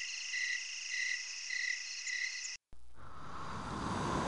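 Crickets chirping at night, a steady high trill pulsing about twice a second. About two and a half seconds in it cuts off abruptly, and after a moment of silence a steady rushing noise begins.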